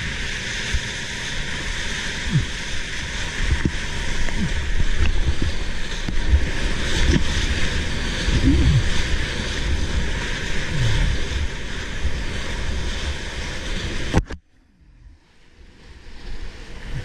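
Wind buffeting the microphone of a deck-mounted camera over the rush and splash of choppy surf breaking against a sea kayak's hull, with low thumps all through. Near the end the sound drops away abruptly for about two seconds, then comes back.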